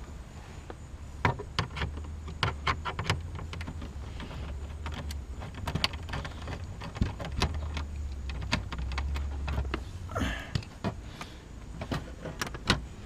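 Ratchet and socket loosening the 7 mm nuts that hold the under-dash panel: sharp clicks in short quick runs, over a steady low hum, with a brief rustle about ten seconds in.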